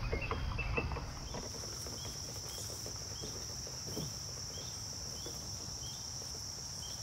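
Woodland insects, crickets or similar, giving a steady high-pitched drone. Over it a short chirp repeats about twice a second.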